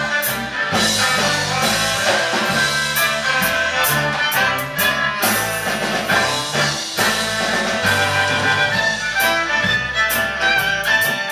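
Live band playing an instrumental passage: saxophone and fiddle carrying the melody over bass and drums with steady cymbal hits.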